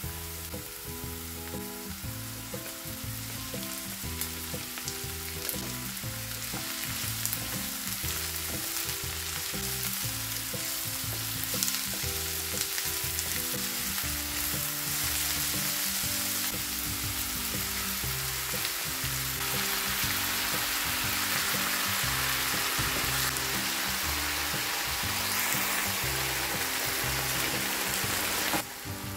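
Chopped onion and bell peppers sizzling in oil in a frying pan, the sizzle getting louder in the second half and dropping off sharply just before the end. Background music with held notes in a steady rhythm plays underneath.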